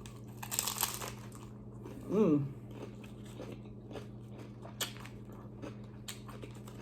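Bite into a crunchy hard taco shell, a loud crunch about half a second in, followed by chewing with small crunches and a short hum-like "mm" about two seconds in.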